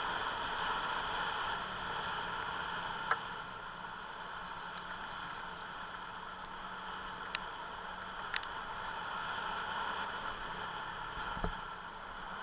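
Steady rushing wind and road noise from riding a motor scooter, with a faint low engine hum and a few short sharp clicks.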